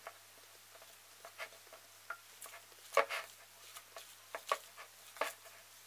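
Hands squeezing and pressing crumbly shortcrust pastry dough together in a ceramic mixing bowl, giving soft, irregular squishes and light taps against the bowl as the crumbs are brought into a ball.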